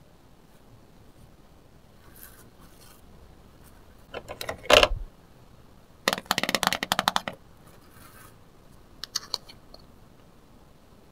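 Hard plastic toy kitchenware being handled: a dumpling mold and play plates clicking and knocking together, with a sharp knock about four to five seconds in, a quick rattle of clicks for about a second after that, and a couple more clicks near the end.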